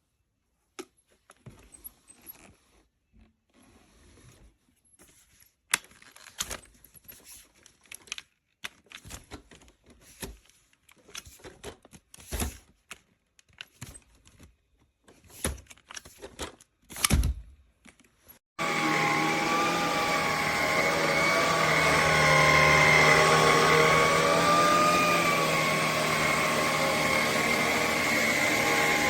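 Scattered handling clicks and knocks, then about two-thirds of the way in a Vax HomePro Plus cordless stick vacuum switches on and runs with a steady motor whine, its pitch wavering slightly.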